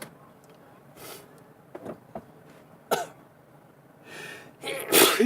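A person in a sneezing fit: sharp in-breaths and short explosive sneezes, with the loudest sneeze near the end.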